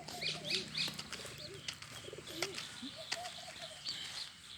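Birds chirping and cooing, with a few short high chirps near the start and repeated low wavering coos, over scattered light knocks.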